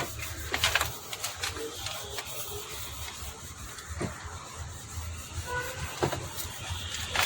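A few scattered clicks and knocks, about a second, four seconds and six seconds in, over a low steady hum, such as tools and parts being handled during engine work.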